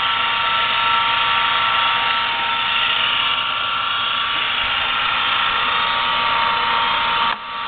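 Jet Arboga 20-inch 8-speed floor drill press running at one of its low speeds: a steady motor and drive whine with several held tones. It dips briefly near the end and then carries on.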